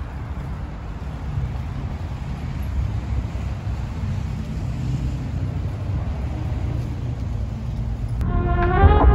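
Steady low outdoor rumble with a faint hiss above it. Background music comes in about eight seconds in.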